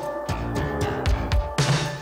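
Background music: a band track with drum hits and guitar over a low bass line.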